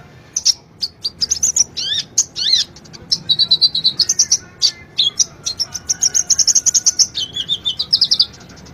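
Sunbird (the 'kolibri ninja' or konin) singing a fast, high-pitched song of rapid chips, sweeping notes and buzzy trills, phrase after phrase with only short gaps.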